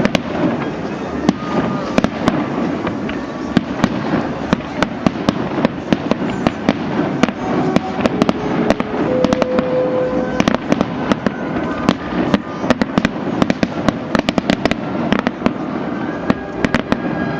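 Fireworks display: a dense, unbroken run of bangs and crackling pops, many a second, over a steady rumble.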